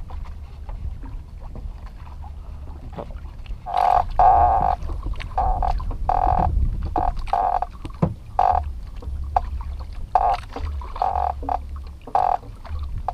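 Fishing reel's drag buzzing in repeated short bursts as a hooked fish pulls line off against it, starting about four seconds in. A low steady rumble runs underneath.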